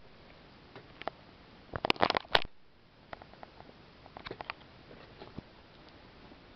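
Handling noise: a single click, then a short cluster of knocks and rustling about two seconds in, followed by scattered light clicks.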